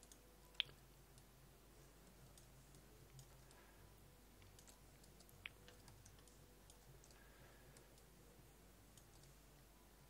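A few clicks of a computer mouse over near silence: one sharp click about half a second in, a softer one about five and a half seconds in, and a few faint ticks between.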